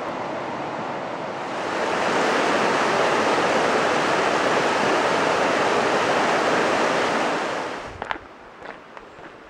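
Mountain stream water flowing, then rushing and splashing over rocks as a loud steady rush that swells about one and a half seconds in. Near the end the rush drops away, leaving a quiet background with a few short sharp clicks.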